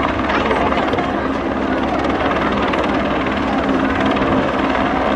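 Helibras H-50 Esquilo (AS350 Écureuil) single-engine turbine helicopter hovering, its main rotor and turbine giving a steady, unbroken drone.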